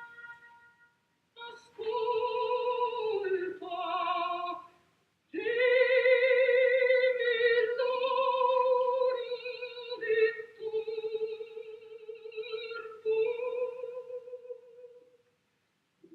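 A woman singing long held notes with heavy operatic vibrato: a short phrase that steps down in pitch, then after a brief break a long held phrase that fades near the end.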